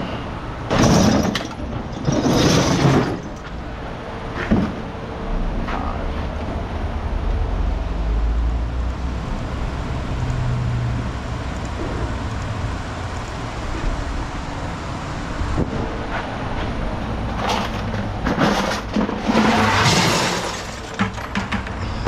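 Scrap metal clattering in loud bursts, at the start and again near the end, over the low rumble of an engine.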